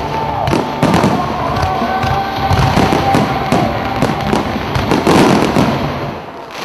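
Dense barrage of aerial firework shells bursting one after another, dying away near the end.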